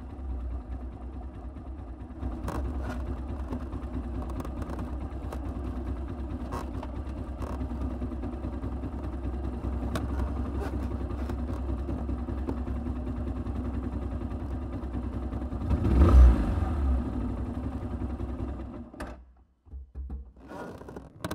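Kymco Quannon 125 single-cylinder motorcycle engine running at low speed in an underground car park, with one short, louder rev about three-quarters of the way through. The engine is then switched off and cuts out shortly before the end.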